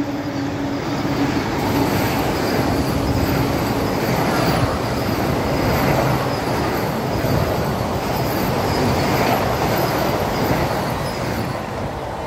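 A Vande Bharat Express electric trainset passing at speed: a steady rush of wheel-on-rail noise and wind as the coaches go by, easing off near the end.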